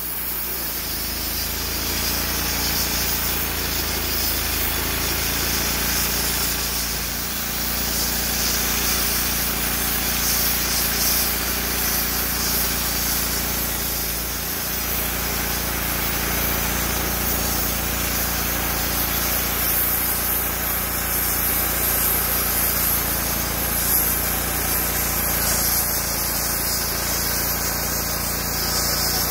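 Wood-Mizer LT35 portable band sawmill running steadily, its engine under load as the band blade saws lengthwise along a white oak cant.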